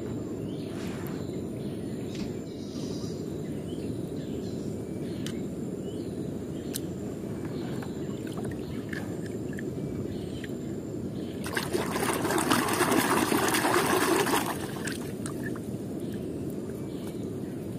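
Water sloshing and dribbling as a hand stirs in a plastic tub of water and lifts wet toy cars out. A louder burst of splashing, a little past the middle, lasts about three seconds.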